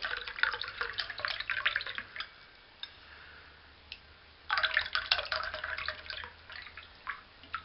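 Canned grass jelly herbal tea being poured out into a glass in two spells, splashing and dripping as the can is emptied, with a few single drips between.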